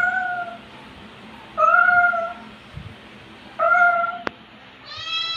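Domestic cat meowing: three short meows about two seconds apart, then a longer, drawn-out meow near the end.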